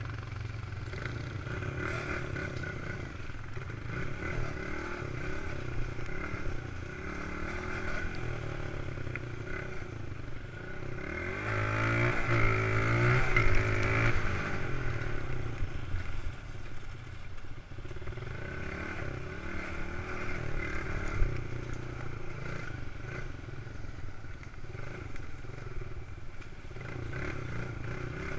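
Suzuki dirt bike engine running while riding a rough dirt trail, heard from a camera on the bike. It revs up and gets louder about eleven seconds in, then eases back to steady running.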